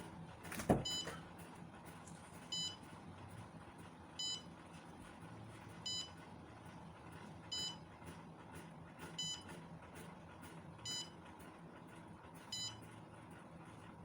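A sharp knock, then the buzzer of an Arduino smoke-detector alarm beeping seven short high beeps, about one every 1.7 seconds, as the alarm signal.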